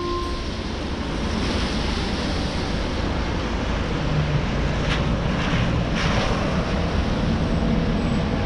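Wind buffeting the camera microphone over a steady rumble of street traffic, as a JR Shikoku Bus highway coach draws up to the stop about halfway through.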